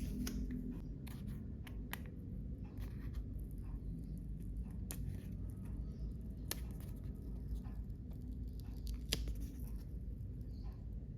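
Packaging being handled and opened by hand: scattered sharp clicks and light rustles, a dozen or so spread irregularly, over a low steady room hum.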